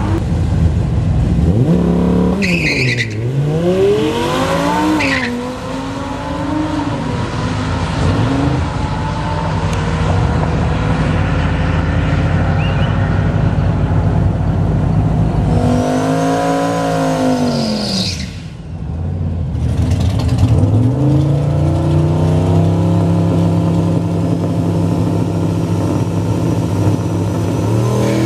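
Drag race car engines revving hard. Several revs rise and fall in pitch a few seconds in, and another long rev comes about two-thirds through, with engines running steadily between them.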